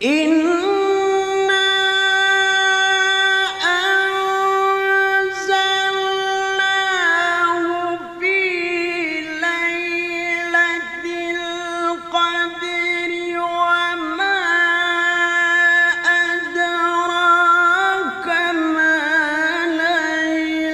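Background music: a single voice singing long, held notes, with occasional ornamented turns between them.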